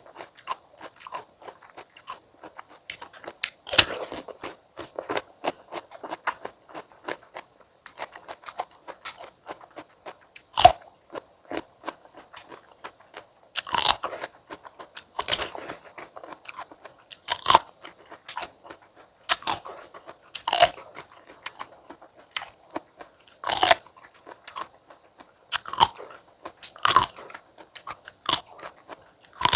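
Close-miked eating of firm fresh stone fruit: crisp bites and wet chewing, with a sharp crunch every one to three seconds and softer mouth sounds between.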